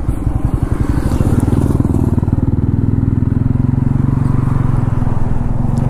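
TVS Ronin 225's single-cylinder engine running steadily at low road speed.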